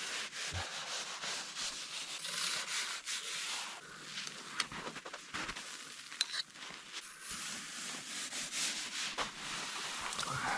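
A blade cutting blocks out of granular snow: a continuous gritty scraping and rasping with scattered sharp clicks.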